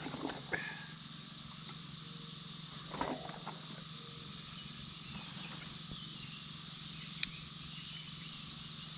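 Steady chorus of frogs and insects, with a few scattered knocks and rustles as firewood is handled and laid on a campfire.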